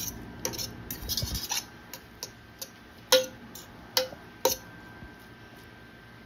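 Metal fork stirring butter through boiled rice in a stainless steel pot: light clicks in the first second and a half, then a few sharp clinks of the fork against the pot, the loudest three in the second half, each with a brief metallic ring.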